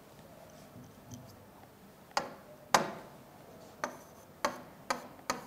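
Stylus tapping against the glass of an interactive touchscreen display during handwriting: a string of six sharp, irregularly spaced clicks starting about two seconds in.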